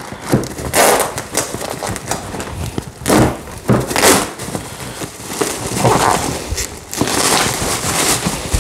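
Plastic bubble wrap crinkling and rustling in irregular bursts as it is handled and pulled off a packed part.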